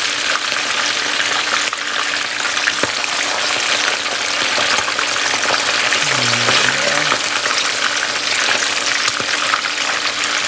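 Whole sea fish shallow-frying in hot oil in a nonstick pan: a steady sizzle with dense crackling spatter.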